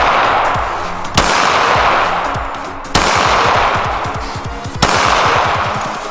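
Three sharp pistol shots roughly two seconds apart, each trailing off in a long echo, with background music underneath.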